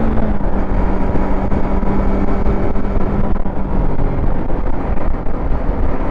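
Yamaha MT-25 parallel-twin engine running steadily under way, with heavy wind noise on the microphone. The engine note holds even for about half the time, then fades into the wind.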